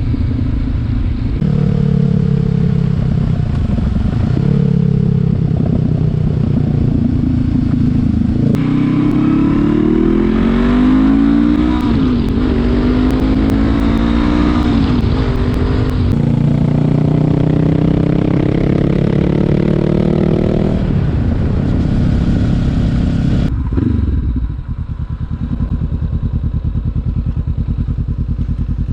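Honda CB500X 471 cc parallel-twin engine running through a Scorpion Serket Taper slip-on exhaust. Its pitch rises and falls several times in the middle, with several abrupt changes, then it settles into a steady, quieter low beat near the end.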